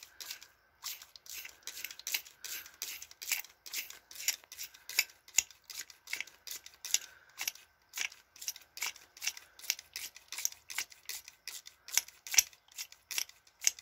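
Ear-irrigation spray bottle pumped in quick repeated squeezes, about three short spurts a second, squirting warm water through its tube into an impacted ear canal to flush out wax.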